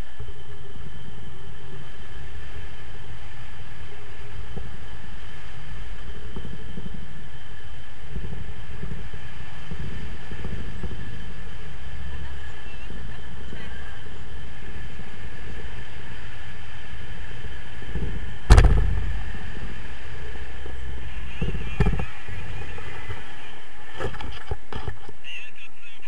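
Wind rushing over an action camera's microphone in paraglider flight, a steady rumble. A sharp knock comes about two-thirds of the way through, with smaller knocks a few seconds later.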